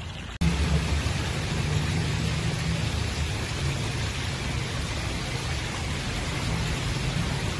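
Steady, dense rush of water at a pond, starting abruptly about half a second in, with a low rumble underneath.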